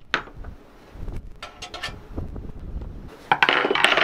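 Sharp metal clicks and clinks as a clamp is handled on a steel bracket held in a jig, ending in a louder second of metal clatter and rattle.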